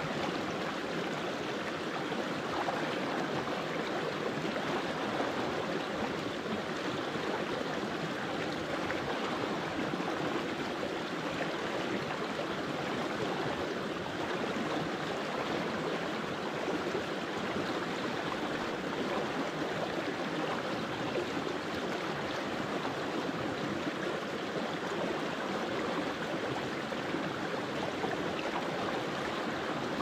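Shallow stream flowing over rocks in small riffles, a steady, even babble of water that does not change.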